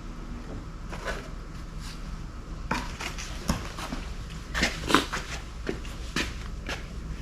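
Light metallic clicks and clinks of hand tools and small parts being handled while working on an outboard motor, irregular and a second or so apart, the sharpest one about five seconds in.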